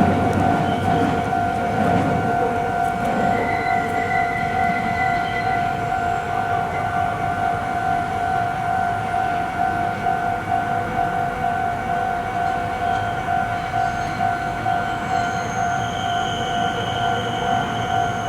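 Japanese railway level-crossing warning bell ringing steadily in a fast, even repeat. The rumble of a passing Meitetsu train fades over the first few seconds.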